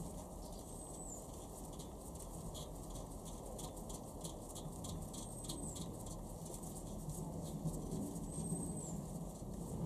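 Faint light ticking and rubbing of a steel ARP head stud being turned by gloved fingers into the threaded head-bolt hole of a B18C4 engine block. Over it, a faint high chirp with a falling tail recurs every few seconds.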